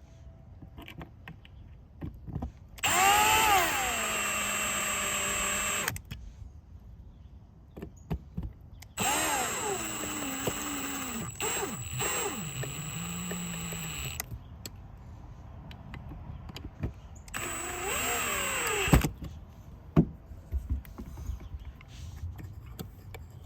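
Cordless drill/driver running in three bursts, the first two a few seconds long and the last about a second and a half, driving the new GFCI outlet's mounting screws into the electrical box. The motor's pitch rises as each burst starts, with small clicks of handling between bursts.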